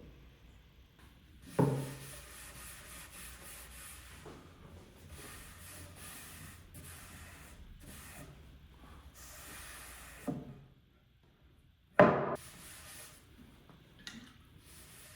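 Wooden workpieces being handled during finishing: a few sharp knocks as wood is set down, the loudest about twelve seconds in, with stretches of rubbing noise between them.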